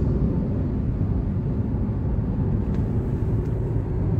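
Steady low rumble of a car cruising at highway speed, heard from inside the cabin: road and engine noise.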